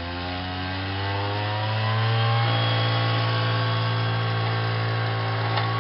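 Two-stroke chainsaw engine running at high revs, driving the GAZ 3308 truck's alternator by belt to charge the battery with the truck's engine off. Its pitch rises over the first couple of seconds, then holds steady.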